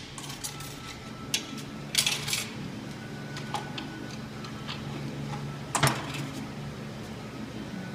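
Metal parts of a GM 400 automatic transmission clinking and clattering as they are handled during teardown, with a cluster of clinks about two seconds in and the loudest clank near six seconds. A steady low hum runs underneath.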